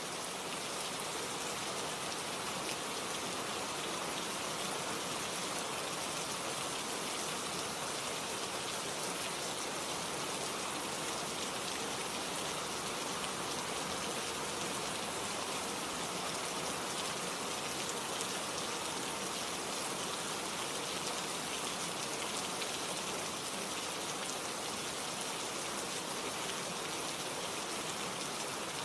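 Steady rain falling, a dense even hiss of many drops with no distinct single drips standing out.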